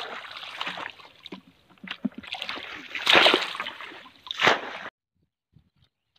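Hands splashing and sloshing in shallow, muddy paddy-field water, groping among the weeds for fish. The loudest splashes come about three seconds in and again a second and a half later, then the sound cuts off suddenly.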